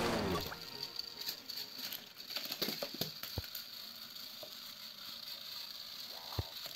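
Battery-powered Thomas toy train's small motor whirring faintly with a steady high whine, its wheels clicking and rattling along plastic track. A sharper knock near the end.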